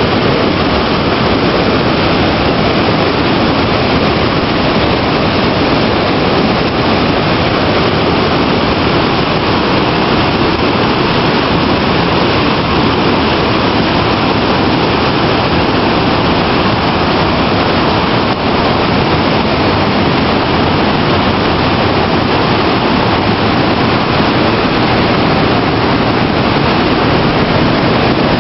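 Underground Orbe river rushing over and between boulders in a cave: a loud, steady rush of whitewater.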